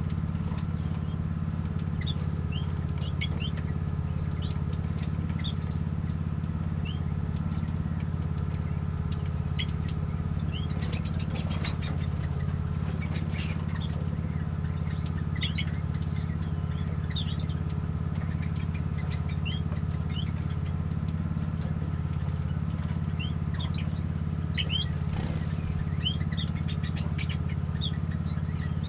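Small aviary birds (finches and waxbills) giving many short, high chirps throughout, over a steady low hum.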